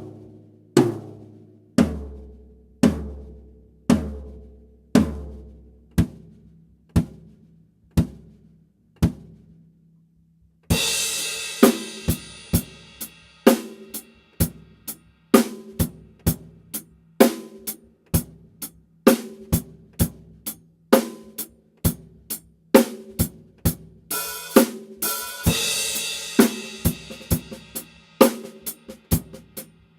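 Pearl Vision birch drum kit: single drum strikes about once a second, each left to ring out, for the first ten seconds or so; then after a short pause a crash cymbal opens a full-kit groove of snare, bass drum and hi-hat, with a second cymbal-heavy passage about 24 seconds in.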